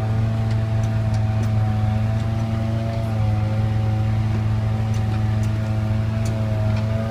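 Diesel engine of a UD pothole-patching truck running steadily at low revs as the truck creeps forward: a deep, even hum with fainter higher tones above it.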